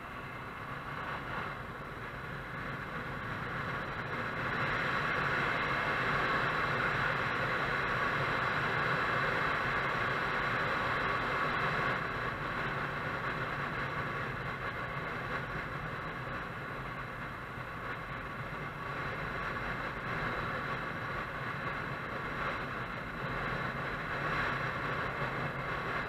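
Motorcycle on the move: engine and wind rushing past an action camera mounted on the bike, a steady noise that grows louder about four seconds in and then holds.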